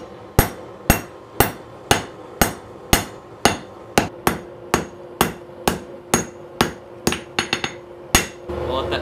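Hand hammer forging a glowing-hot damascus knife blade on a steel anvil: steady ringing blows, about two a second, with a few quicker lighter taps near the end. The hammering then stops and gives way to a steady hum.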